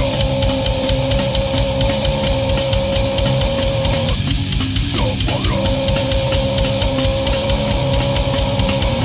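Death crust band playing a song: fast, dense drumming under distorted guitar and bass, with a high note held for about four seconds, broken about halfway by a quick slide, then held again.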